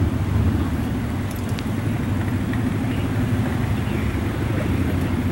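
Steady low rumble of vehicle engines and road traffic, holding an even level throughout.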